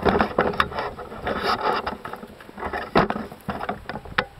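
Crackling, scraping and snapping of dry twigs and dead wood as someone moves through brush and up against a dead juniper trunk, with one sharper knock about three seconds in.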